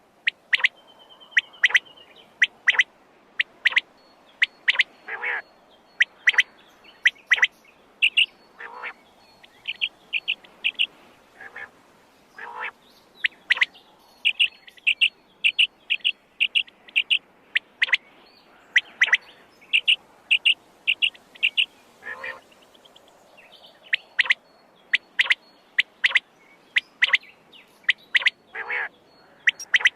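Quail calling over and over: short, sharp high-pitched calls, many in quick runs of three to five, with lower sweeping calls now and then between them.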